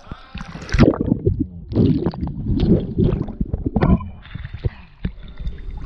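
Swimming-pool water splashing and sloshing in uneven bursts as a person goes into the cold water.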